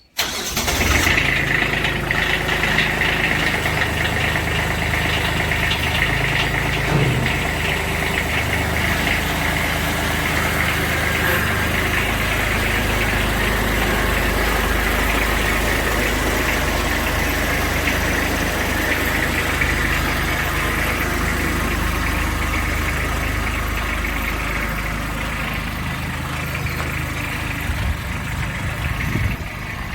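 An engine idling steadily, coming in suddenly at the start.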